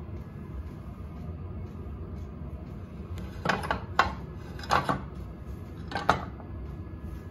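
Metal clanks and knocks as the hinged belt guard over a Myford ML7 lathe's headstock is swung down and shut against the casting: three pairs of sharp knocks in the second half, over a steady low hum.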